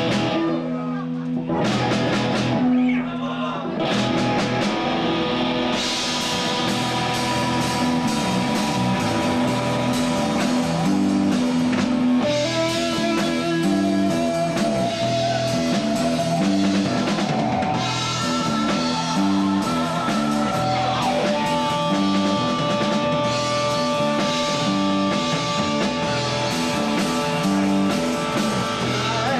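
Live rock trio playing: electric guitar through an amp, electric bass and a Yamaha drum kit. It opens with a few separate hits, and the full band comes in about four seconds in, with held guitar notes over the drums and bass.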